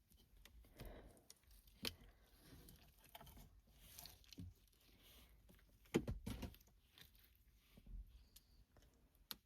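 Faint, scattered sticky crackles and small clicks of cleaning gel being pressed into and peeled off a car's gear-shift surround, with a louder cluster of crackles about six seconds in.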